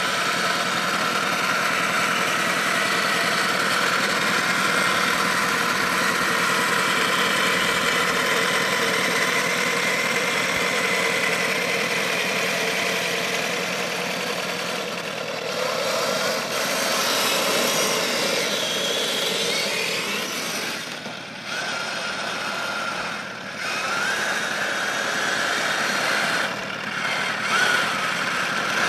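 3D-printed radio-controlled IS-1 model tank driving on grass, running steadily with a mechanical whine. The pitch rises for a few seconds past the middle, and the sound dips briefly twice about three-quarters through.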